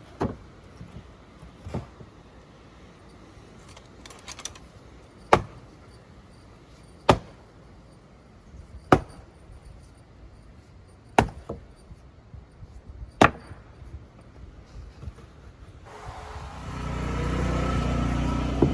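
Heavy hammer blows driving stakes into root-filled ground, five loud strikes about two seconds apart after a few lighter taps. Near the end a steady engine starts running.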